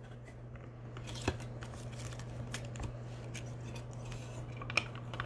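Trading cards and their plastic holders being handled at a table: light scattered clicks and faint rustling, over a steady low electrical hum.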